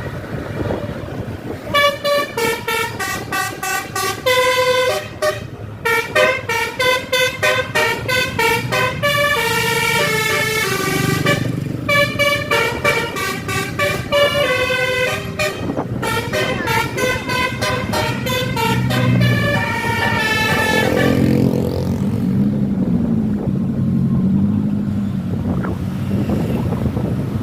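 Bus 'telolet' horn, a set of multi-tone air horns, playing a fast tune of short tooting notes in several phrases with brief breaks over engine and road noise. Near the end the tune stops and a lower wavering tone takes over.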